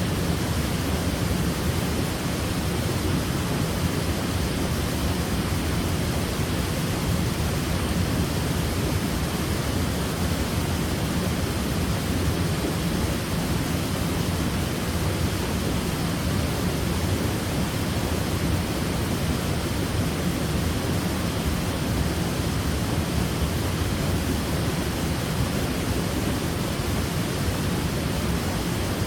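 Waterfall: water pouring and splashing in a steady, unbroken rush, heaviest in the low range.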